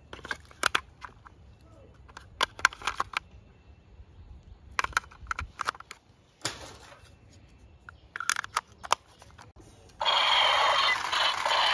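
Clicks and knocks of AA batteries and the plastic battery cover being fitted into the grip of a battery-operated toy pistol. About ten seconds in, the toy pistol's electronic sound effects switch on suddenly: loud, with sweeping siren-like tones.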